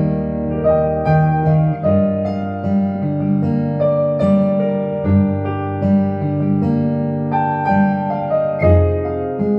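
Yamaha Clavinova CVP-805 digital piano playing a song melody over chords in its piano voice, with bass notes changing about once a second.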